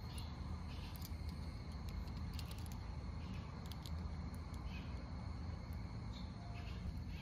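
Faint outdoor background: a steady low rumble with scattered faint, irregular high ticks.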